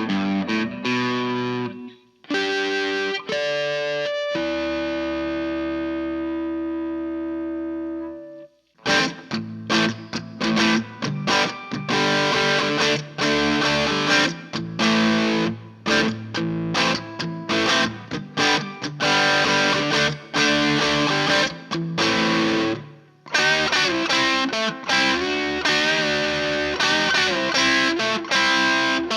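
Electric guitar played through a Fender Bassman amp with reverb: a few chords, a chord left ringing for about four seconds, then a fast run of single notes and chord stabs with a short break near the end.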